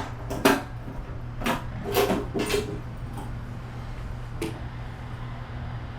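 A handful of sharp clicks and knocks, like equipment being handled, over a steady low hum; the loudest knock comes about half a second in, others around one and a half, two, two and a half and four and a half seconds.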